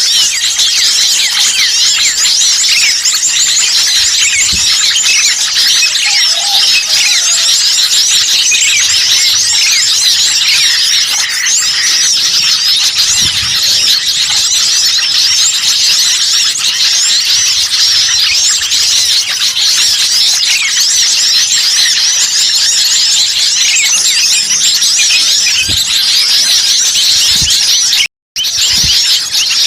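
A dense, excited chorus of many small songbirds chirping and twittering all at once, the kind of agitated flock calling used as a lure to draw wild birds in. The sound cuts out for a split second near the end.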